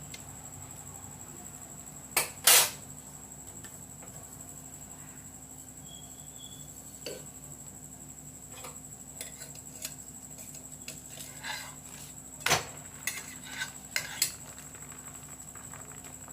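A metal spatula clinking and knocking against a tawa (flat griddle) while a paratha is turned on it: scattered sharp clinks, the loudest a pair about two seconds in, over a faint steady hum.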